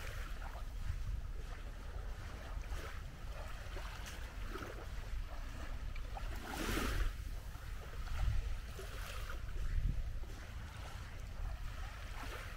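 Wind buffeting the microphone in a steady low rumble, with waves washing onto the beach; one louder wash or gust about seven seconds in.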